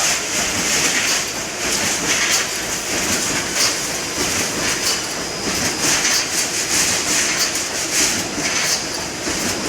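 Wire mesh fence panel welding machine running, a rhythmic mechanical clatter of repeated strokes a little faster than one a second, each cycle a weld and feed of the mesh.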